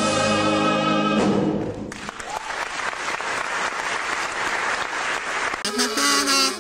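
Singers and pit orchestra hold the final chord of a stage-musical number, which ends about a second in, followed by audience applause. Near the end, different music starts.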